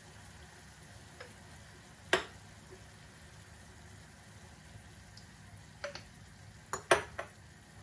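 Sharp clinks and knocks of cookware and utensils over a faint steady background: one about two seconds in, then a quick cluster near the end, the loudest about seven seconds in.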